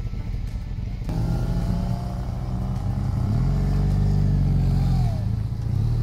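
A low, steady engine drone with several pitches that shift, growing louder about a second in.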